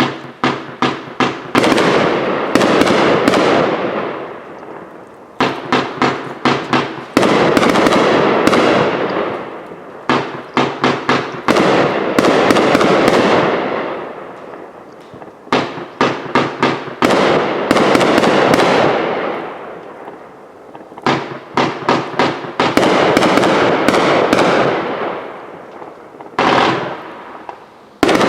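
'Happy Campers' consumer firework from OMG Fireworks going off in repeated volleys. Each starts with a quick run of four or five sharp pops, followed by a long noisy burst that fades over two to three seconds. The pattern repeats about every five seconds.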